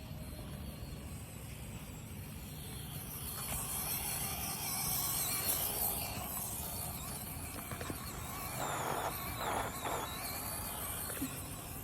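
Small electric motors and gearboxes of 1/24-scale RC crawlers whining, louder through the middle, with a few short scuffing noises near the end.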